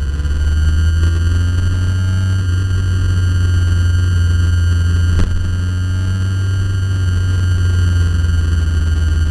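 Poor onboard race-track camera audio: a heavy steady low rumble under a faint engine note that rises and falls with the revs, overlaid by constant electronic tones. A single sharp click comes about five seconds in.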